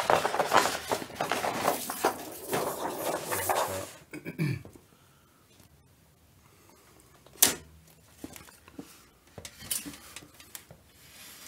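The thin white reflector sheet from an LED TV's backlight rustling and crackling as it is lifted out, for about four seconds. After that comes one sharp knock a little past halfway, then a few light taps on the TV's bare metal back chassis.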